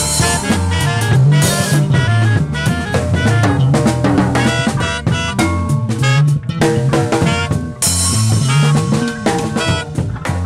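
Live small band playing: saxophone with guitar, bass guitar and drum kit, a moving bass line under busy drumming. A cymbal wash rings at the start and again about eight seconds in.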